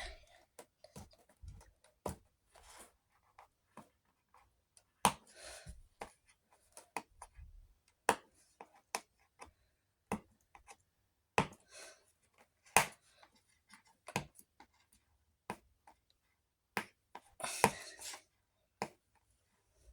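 Fingers picking at and pulling packing tape on a cardboard box: scattered sharp clicks and taps with a few short scratchy rasps, coming irregularly with quiet gaps between.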